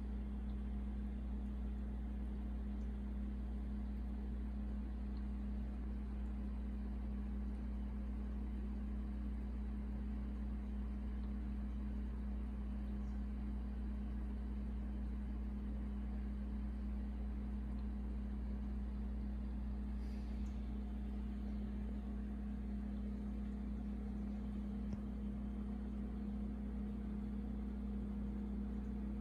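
Steady low hum of a small motor, with a constant tone near 200 Hz and a deeper drone beneath, unchanging throughout.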